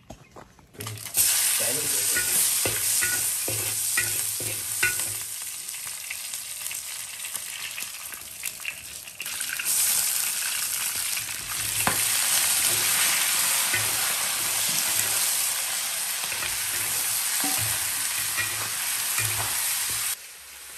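Meat stir-frying in hot oil in a wok: loud sizzling starts about a second in, with a metal spatula scraping and clinking against the pan, and eases off near the end.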